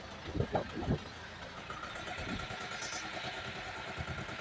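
Outrigger bangka's engine running steadily under way, with a thin steady whine that comes in about two seconds in.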